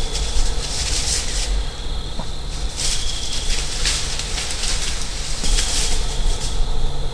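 Wind rumbling on the microphone, with gusts hissing through the trees that swell and fade every second or so.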